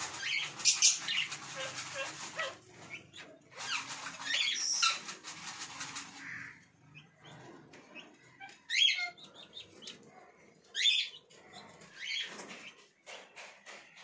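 Indian ringneck parakeets: two stretches of scratchy, rustling chatter in the first half, then two short shrill rising calls about nine and eleven seconds in, with light clicks between.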